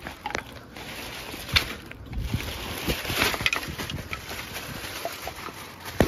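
A plastic bag rustling as cooked bones and meat scraps are shaken out of it onto concrete, with scattered clicks and knocks of bones landing. The loudest is a sharp knock about a second and a half in, and the rustling is thickest around the middle.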